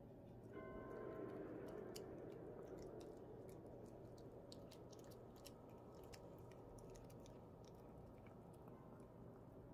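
Pomeranian puppy chewing on a small treat: faint, irregular little crunching clicks from its teeth.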